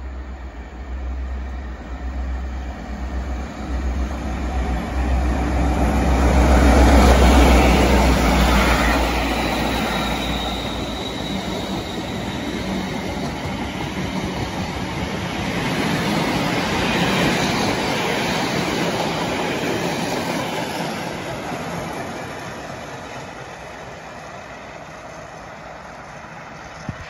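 Class 57 diesel locomotive passing at speed with a dead Class 319 electric unit in tow. Its engine's low drone builds and is loudest about seven seconds in, then gives way to the rumble of the towed coaches' wheels on the rails, which swells again mid-way and fades over the last few seconds.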